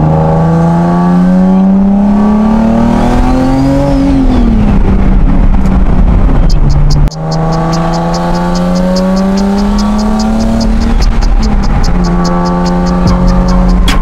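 Turbocharged Nissan 370Z's 3.7-litre V6 heard from inside the cabin, pulling through a gear with the engine note climbing for about four seconds and then dropping at an upshift; after a sudden cut about halfway, it climbs through another gear and drops again near the end. A faint whistle rises and falls with the revs in the first pull, and a fast, even high ticking joins in the second half.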